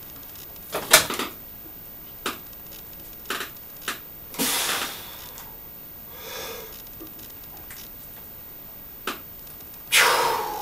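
Gym equipment knocking and clanking in a small room, a few separate knocks with the loudest about a second in, and two short rushes of heavy breath between them.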